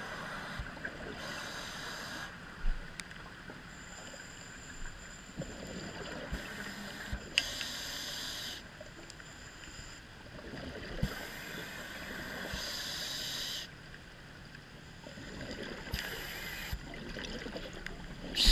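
Scuba diver breathing through a regulator, heard underwater through a camera housing: bursts of exhaled bubbles hiss for a second or two about every five seconds over a steady low wash, with a few sharp little knocks.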